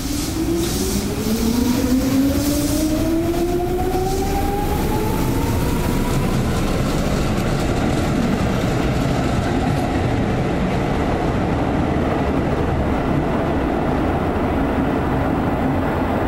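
Seibu 2000-series electric train with field-chopper control pulling away from the platform. Its traction motors whine in two tones that climb steadily in pitch over the first six or seven seconds as it gathers speed. A steady rumble of the cars rolling past follows.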